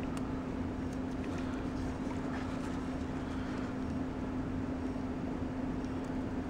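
Steady hum of a small motor or fan running, with one constant low tone, and a few faint ticks of tweezers on the model.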